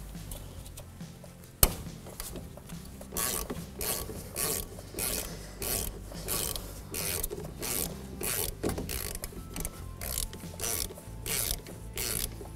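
A 3/8-inch ratchet on a twist-lock extractor socket clicks in repeated short strokes, about two a second, as it unscrews a rounded-off brake hose fitting from a front brake caliper. A single sharp crack comes before the strokes, about two seconds in.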